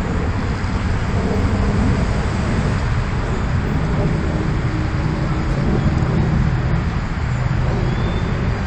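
Steady outdoor background noise with a low rumble that neither rises nor falls, and no distinct events.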